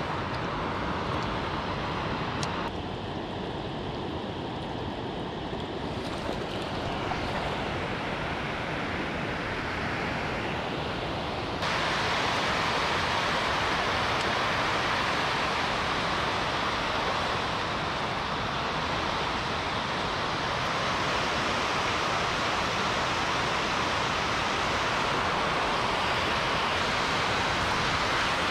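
Water pouring over a low river weir, a steady rushing roar with no break. It jumps abruptly louder about 12 seconds in and stays at that level.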